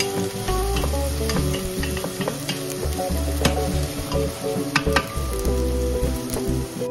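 Chopped onion sizzling in olive oil in a stainless steel pot while a wooden spoon stirs it, with a few sharp knocks of the spoon against the pot. Soft background music runs underneath.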